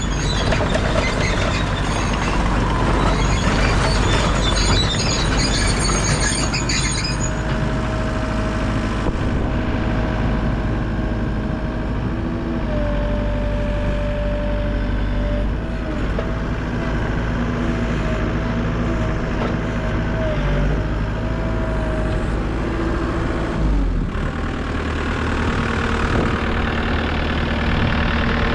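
2012 New Holland C238 skid steer's diesel engine running, with high squealing and rattling over the first seven seconds or so. A steady whine then sits over the engine until about 22 s in. The engine note shifts about 24 s in and runs on steadily.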